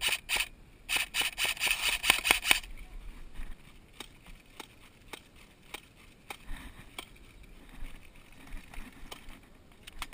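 Magpul Masada airsoft rifle firing: a couple of sharp shots, a brief pause, then a fast string of about a dozen shots lasting under two seconds. Fainter scattered clicks of other players' airsoft fire follow.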